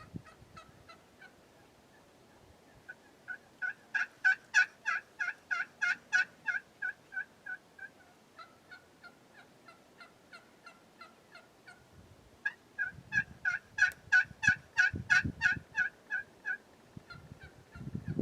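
Two long series of evenly spaced bird call notes, about four a second. Each series builds up, grows loud and fades off, the second starting about twelve seconds in.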